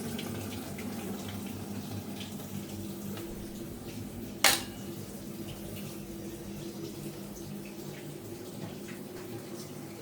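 Washing machine running a test cycle with water flowing in it over a steady low motor hum, after its suspension springs have been replaced. There is one sharp click about four and a half seconds in.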